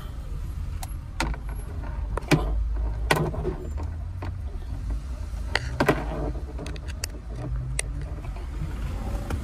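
Interior of a moving road vehicle: a steady low rumble from the engine and road. Irregular sharp clicks and rattles run through it, with a few louder knocks about two, three and six seconds in.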